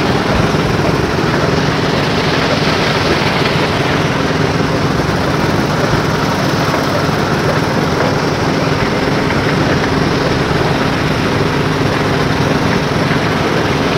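Truck engine running steadily: an even, unchanging engine drone with a constant hiss of noise above it.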